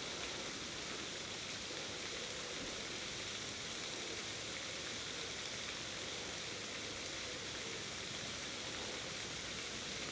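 Steady, even hiss of outdoor background noise, with no distinct events.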